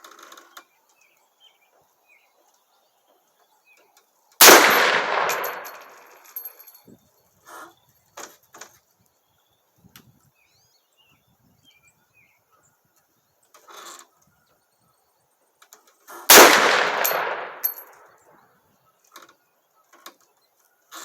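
Two single shots from a .50 Beowulf AR-15 rifle, about twelve seconds apart, each a sharp, loud crack followed by an echo that dies away over a second or two. Faint clicks and knocks between the shots.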